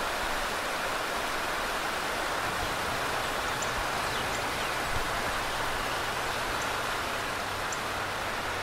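Water rushing over a low river weir: a steady, even hiss of flowing water.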